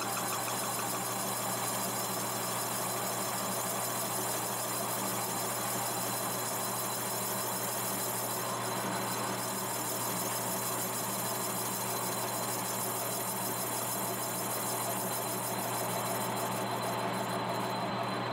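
Metal-turning lathe running steadily, a constant machine hum with several held tones.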